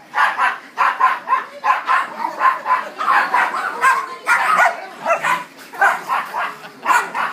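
Small dogs barking and yipping at play, quick high-pitched barks coming about three a second.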